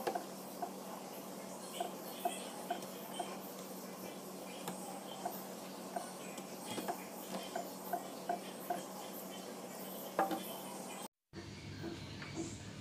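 Kitchen scissors snipping through raw prawn shells, heads and feelers on a plastic cutting board: a string of small, irregular clicks.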